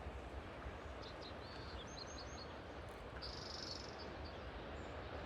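Faint outdoor background with a few short high chirps about two seconds in and a brief high buzzy call a little after three seconds.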